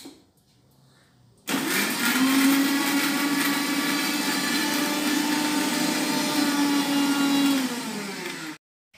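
Electric mixer grinder with a steel jar grinding soaked chana dal into a coarse batter. The motor starts about a second and a half in, its pitch rising as it spins up, then runs steadily. Near the end it slows and cuts off abruptly.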